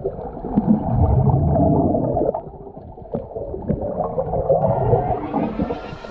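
Underwater sound picked up by a camera's microphone: muffled, uneven water movement and bubbling from snorkelers swimming, with a few soft clicks.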